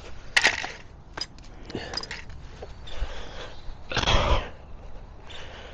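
A cloth rubbing and wiping over bike brake parts: several short rustling scrubs, the longest and loudest about four seconds in.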